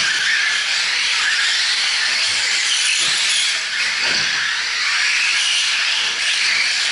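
Several 4WD radio-controlled short course trucks racing on a dirt track: a steady high hiss and whine from their electric motors, drivetrains and tyres on the dirt.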